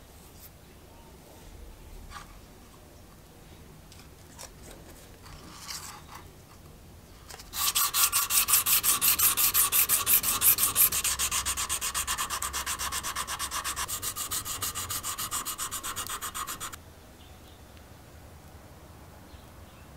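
Brass top plate of a spirit level being hand-sanded with rapid back-and-forth strokes, about six a second. The dry scratchy rasping starts about a third of the way in and stops abruptly some nine seconds later. It is preceded by a few light handling taps.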